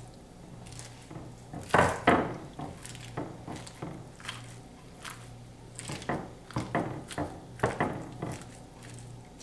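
A silicone spatula pressing and scraping a sticky, hardening peanut butter and corn flake mixture into a glass baking dish, making irregular scrapes and taps against the glass; the loudest two come about two seconds in. A faint low hum runs underneath.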